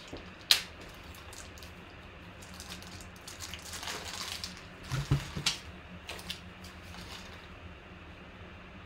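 Handling noise on a tabletop: a sharp click about half a second in, then a cluster of small clicks and rustles with a low knock about five seconds in, over a faint steady room hum.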